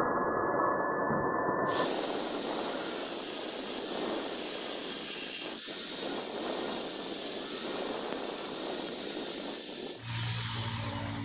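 Angle grinder's abrasive disc grinding the tip of a clamped steel rod to shape a homemade wood drill bit: a steady grinding noise, with the grinder motor's high whine clear in the first couple of seconds. The grinding cuts off abruptly about ten seconds in.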